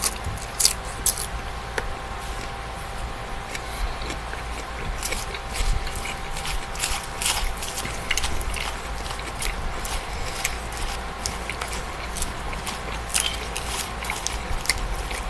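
A person chewing a mouthful of spinach salad close to the microphone: irregular short, sharp mouth clicks and smacks.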